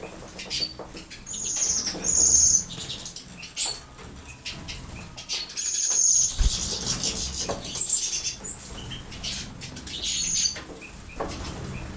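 Small pet birds bathing: wings fluttering and splashing in the water, with repeated short, high chirps between the bouts.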